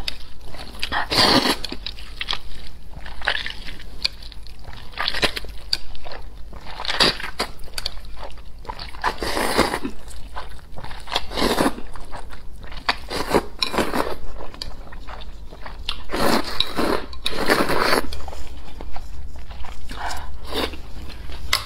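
Close-miked slurping of long, thin noodles out of a bowl of broth: repeated noisy slurps about every two seconds, with chewing between them.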